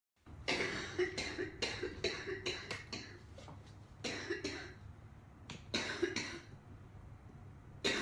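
A woman coughing repeatedly into her fist: a quick run of about eight coughs, then shorter bouts of a few coughs each with brief pauses between.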